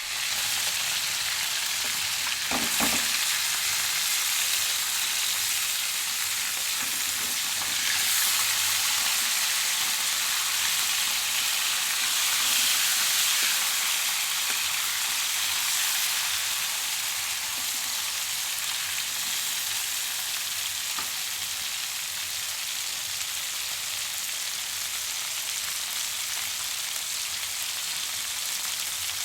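Food sizzling steadily in a frying pan: a dense, crackling hiss with occasional small pops.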